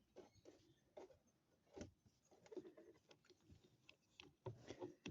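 Faint, irregular clicks and light knocks, a few at a time, like small hard objects being handled.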